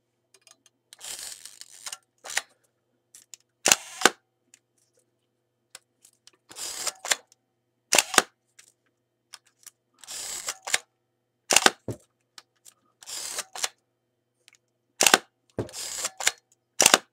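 Kiev 6S medium-format SLR being wound and fired again and again with its back open: a short rasping wind of the advance, then a sharp shutter clack, about six times. Some firings are a double click a fraction of a second apart. The shutter is being run through its speeds after repair, and all of them fire properly.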